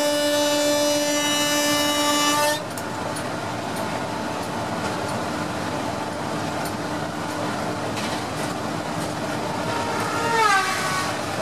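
Indian Railways WAP-4 electric locomotive's horn sounding one long steady blast that cuts off abruptly about two and a half seconds in. The rumble of the train running at speed follows, with a brief tone dropping in pitch near the end.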